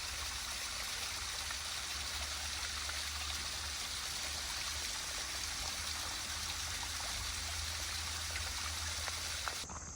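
Brook water running over a small waterfall: a steady rush of water that cuts off abruptly near the end.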